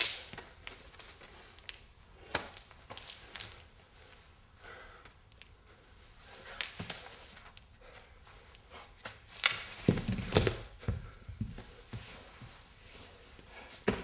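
A dancer's body and shoes on a hard floor: irregular scuffs, knocks and rustles, with a cluster of heavier thuds about ten seconds in as he drops toward the floor.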